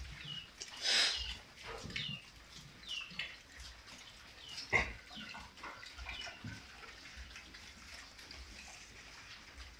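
Young pigs feeding on water spinach: short grunts and munching sounds, irregular, with the loudest about one second in and just before the middle.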